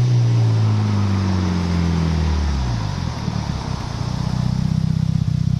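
Mitsubishi Lancer Evolution 6.5 Tommi Mäkinen Edition's turbocharged 4G63 four-cylinder engine, its revs falling away over about three seconds and settling into a steady, pulsing idle.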